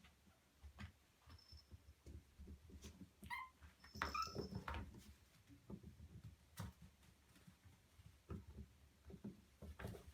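Young puppies whimpering: a short squeak a little over three seconds in and a louder, longer squeal about four seconds in, over soft rustling and shuffling.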